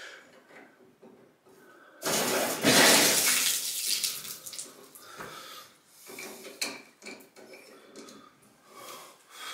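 Water from a bathtub faucet gushes on suddenly for about two seconds, then fades. Small clicks and clinks follow as the handle stopper is worked on the valve stem.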